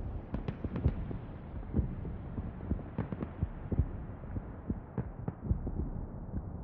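Muffled electronic dance-pop music: deep, irregular drum thumps over a low rumble, with the treble filtered away and the sound growing duller as it goes.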